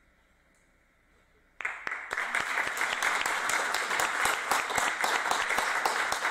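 Audience applauding, starting suddenly about a second and a half in after near silence: many hands clapping together.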